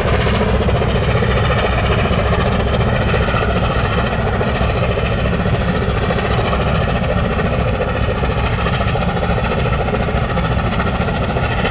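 Diesel-driven cargo-handling machinery of a gravel carrier (gut ship) running steadily and loudly, a dense engine drone with a layer of held tones above it.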